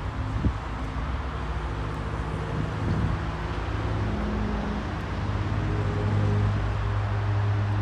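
V/Line N-class diesel-electric locomotive approaching with its carriages, its EMD 12-cylinder diesel engine humming steadily and growing louder over the last couple of seconds as it nears.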